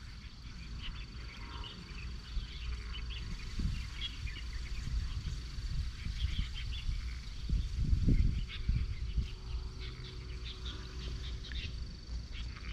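Outdoor ambience of insects chirping in many short, scattered calls over a thin steady high tone, with a low rumble that swells about eight seconds in.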